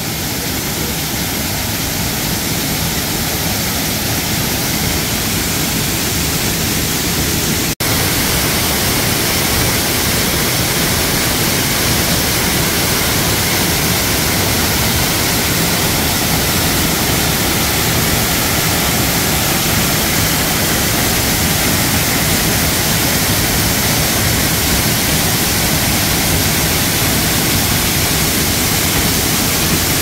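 Steady, loud rush of a tall waterfall in heavy flow plunging into its pool at close range, a dense even wash of falling water. The sound drops out for an instant about eight seconds in.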